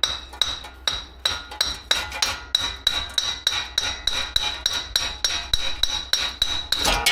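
Loud, steady hammering on steel during a wheel bearing job, about three blows a second, each strike leaving a high metallic ring.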